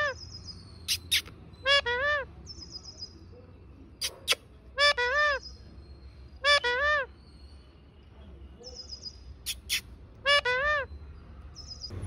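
Male Alexandrine parakeet calling: four loud double calls, each note rising and falling in pitch, a few seconds apart, with short sharp clicks and brief high buzzy notes in between.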